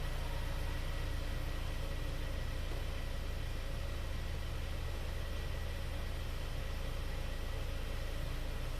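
2021 Hyundai Sonata's 2.5-litre Smartstream four-cylinder direct-injection engine idling steadily, just restarted on fresh oil after an oil change.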